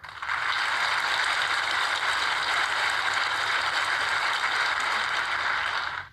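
A crowd applauding: steady, dense clapping that starts abruptly and cuts off after about six seconds.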